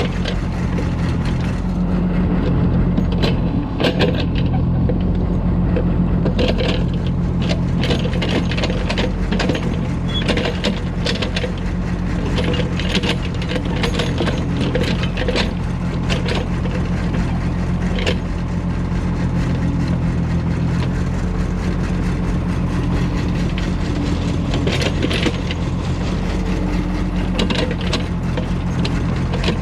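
Diesel engines of an excavator and a công nông farm truck running steadily while the excavator loads soil, with frequent knocks and clatters of the bucket and dirt.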